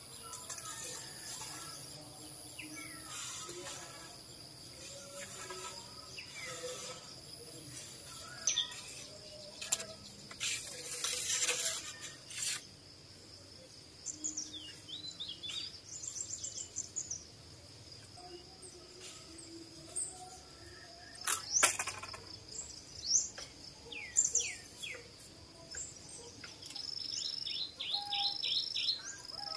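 Small birds chirping in short calls and quick falling notes over a steady, high-pitched insect drone. A few sharp knocks and rustles come and go, the loudest about two-thirds of the way through.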